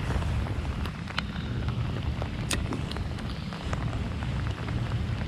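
Rain falling on a rain jacket and the camera, with scattered sharp drop ticks over a low steady rumble.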